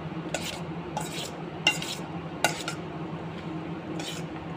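A spoon stirring and tossing chopped salad in a stainless steel bowl, with about five scrapes and clinks against the bowl's side, over a steady low hum.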